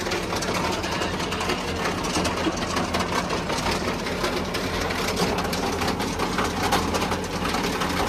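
Tractor engine running steadily while a towed silage feed-out wagon clatters, its conveyor rattling fast as it discharges chopped maize silage.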